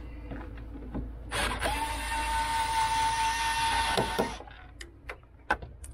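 Cordless drill-driver running for about three seconds at a steady pitch, undoing a fixing screw on a van's rear light cluster, then stopping suddenly; a few light clicks and knocks follow.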